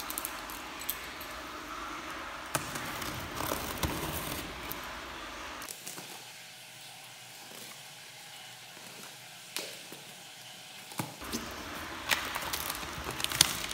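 Box cutter slicing and scraping along the packing tape of a cardboard box, with scattered clicks and taps of the blade and hands on the cardboard. It goes quieter for a few seconds in the middle, and the taps pick up again near the end.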